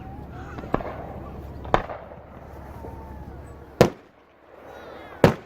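Aerial fireworks exploding: four sharp bangs over a few seconds, the last two loudest.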